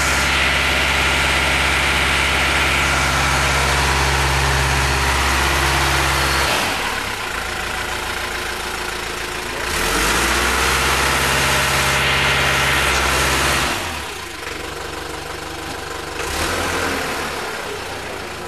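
Diesel engine of a Kramer Allrad 512 SL wheel loader running steadily, louder for the first six seconds and again for a few seconds in the middle, quieter in between, with a short rise near the end.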